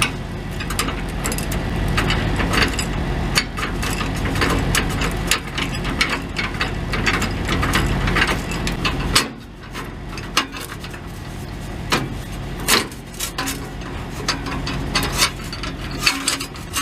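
Socket wrench working the bolts of an exhaust bracket under a Peterbilt 379, making scattered metal clicks and clinks. Under it runs a steady low engine-like hum that drops away briefly about nine seconds in.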